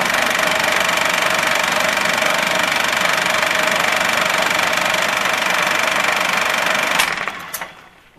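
Film projector sound effect: a steady mechanical rattle with a constant hum, broken by two clicks about seven seconds in and then dying away.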